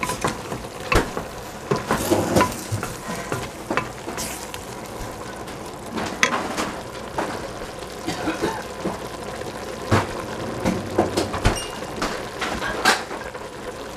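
Wooden spatula stirring cabbage and broccoli in a stainless steel pot, with irregular scrapes and knocks against the pot, over a steady sizzle of the vegetables cooking.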